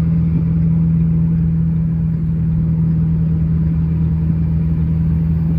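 Heavy farm diesel engine running at a steady speed while moving equipment by road: an even, constant drone with a strong low hum.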